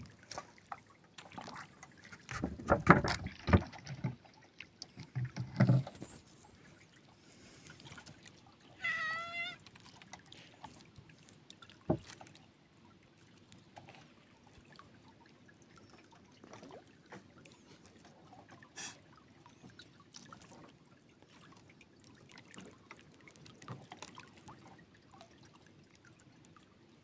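Water sounds around a small wooden outrigger canoe at sea, with several loud low bumps a few seconds in and again around six seconds, a short wavering high-pitched call about nine seconds in, and a sharp click near twelve seconds.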